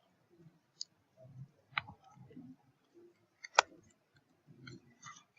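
Scattered computer keyboard and mouse clicks, a few sharp ones, the loudest about three and a half seconds in, over faint low murmuring.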